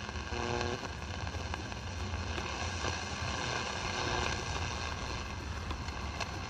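Static hiss from a Zenith Trans-Oceanic Royal 7000's speaker while it is tuned across a mostly empty shortwave band. Faint steady whistle tones run through the hiss, and a faint, distant voice briefly comes through under a second in.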